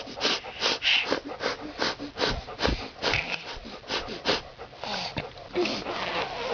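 A run of short, breathy huffing noises, about three or four a second, made as an imitation of an animal.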